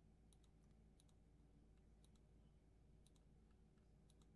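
Faint computer mouse clicks, mostly in quick pairs about once a second, over near-silent room tone.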